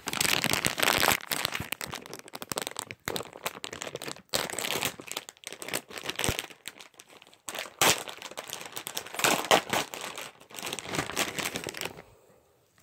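Crinkly wrapper of a mystery-ears blind bag being torn open at its tear tab and rummaged by hand: continuous crackling and crumpling with sharper crackles, stopping about a second before the end.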